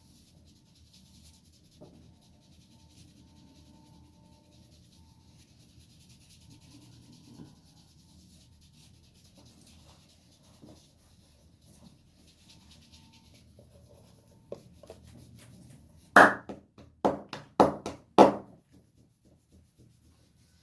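Barber's hands rubbing over a customer's scalp and hair in a head massage, a faint, continuous friction sound. Near the end, four loud hand slaps come in quick succession.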